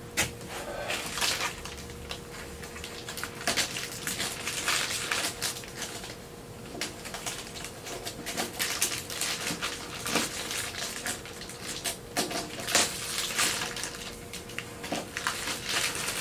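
Old plastic covering film being pulled and torn off an RC airplane's tail by hand: an irregular run of crackles and crinkles, over a faint steady hum.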